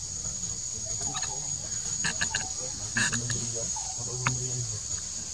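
Steady high-pitched insect drone, with a few short clucking calls and clicks over it between about one and four and a half seconds in.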